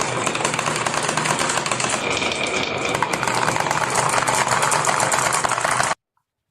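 Marbles rolling and clattering down a wooden marble run: a dense, rapid rattle of many small clicks that cuts off suddenly near the end.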